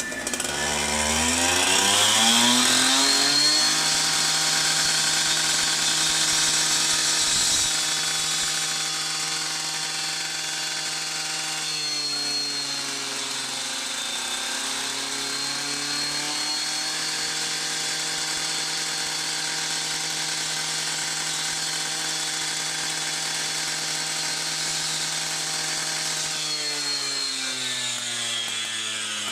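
Handheld electric power tool spinning up over about three seconds and then running steadily, with a hissing cutting noise. Its pitch sags and recovers about a third of the way in as it bears on the work, and it winds down near the end. Firefighters are cutting apart the washing machine.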